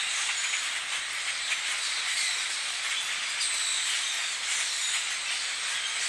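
Dense, steady chatter of a huge flock of birds in the trees: many overlapping calls blend into a continuous hissing din, flecked with short high chirps.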